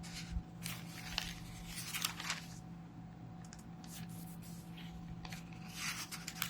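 Thin book pages being flipped and rustled in a few short sweeps, about a second in and again near the end, over a steady low hum.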